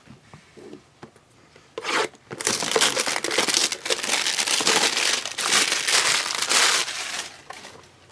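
Plastic wrapper of a trading-card pack being torn open and crinkled: a dense rustling that starts about two seconds in and dies down near the end.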